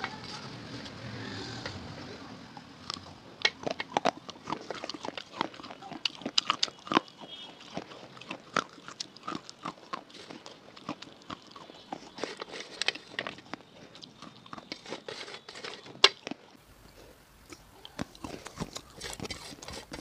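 Close-miked chewing of biscuit pieces soaked in a red paste: irregular wet crunches and mouth smacks, several a second.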